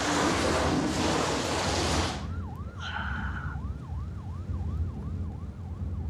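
A loud rustling noise for about two seconds, then a police siren in fast yelp mode, rising and falling about three times a second.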